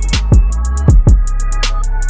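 Background music: an electronic beat with deep bass, kick drums and fast hi-hat ticks, the bass sliding down in pitch about half a second in.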